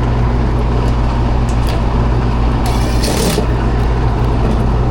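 Old Coleman package air-conditioning unit running with a steady low electrical hum, its compressor not starting, which the technician takes for a bad capacitor or a compressor that no longer wants to run. There is a short hiss about three seconds in.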